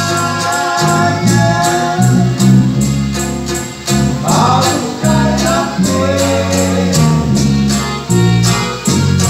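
Live norteño-style gospel music: an accordion and guitars playing over bass notes, with a steady percussion beat.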